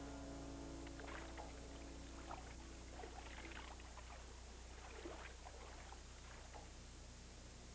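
Water splashing and sloshing in several short bursts as hands scoop water from a stream to drink, over a faint steady low hum. A held music chord fades out in the first couple of seconds.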